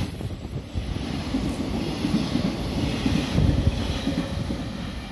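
Freight train's container wagons passing close by at speed: a steady low rumble with wheels knocking and clattering on the rails, easing off slightly toward the end.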